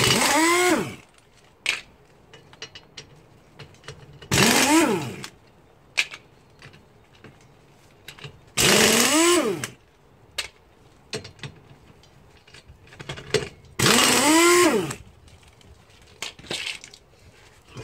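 A power wrench spinning off a car's wheel nuts one at a time: four runs of about a second each, each rising in pitch and falling away, with small clicks of nuts and tools between them.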